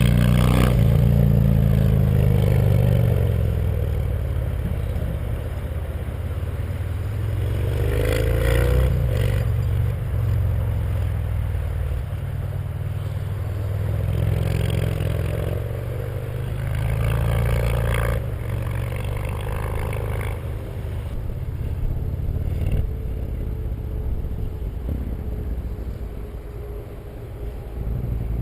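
Yamaha MT-01's 1670 cc V-twin running through a full titanium Akrapovic exhaust with no catalysts or EXUP valve: a deep, low engine note that swells and eases several times as the throttle is worked, rising again at the end.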